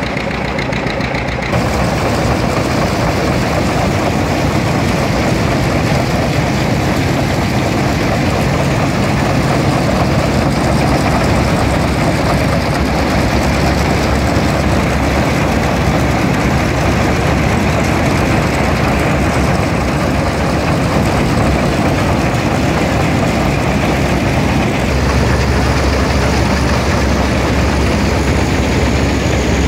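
A belt-driven John Deere threshing machine running, a dense steady mechanical noise from its belts, pulleys and shaking parts as it threshes grain. The sound steps up about a second and a half in, and a low hum grows louder near the end.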